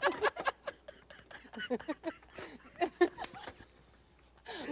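Quiet laughter in short breathy bursts, with scattered light clicks, dying away near the end.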